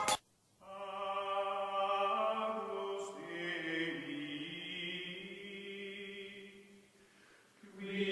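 Sustained chant-like drone: several long-held, layered tones, like voices in a choir, sliding slowly in pitch. It starts about half a second in, fades out near the end and then comes back.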